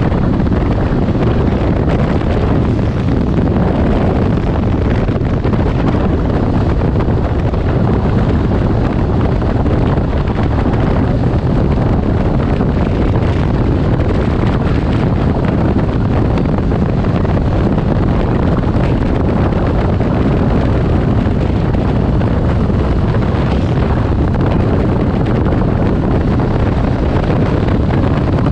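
Steady wind rush buffeting the microphone on a Can-Am Ryker Rally three-wheeler riding at road speed, with the machine's engine and road noise underneath.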